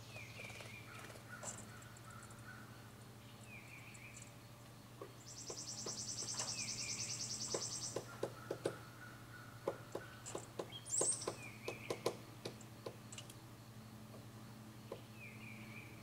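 Hairy woodpecker knocking and pecking at a painted wooden trim board, a run of sharp irregular taps about halfway through, as it forages at a carpenter bee hole for larvae. Behind it, a bird gives a short falling call every few seconds, and an insect buzzes high for about three seconds just before the tapping.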